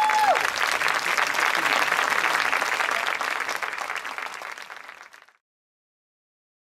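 Audience applauding, fading out over about five seconds into silence.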